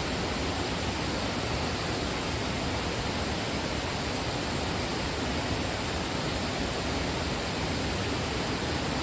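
Steady rush of water pouring over the rocks of a waterfall and rapids, an even, unbroken noise.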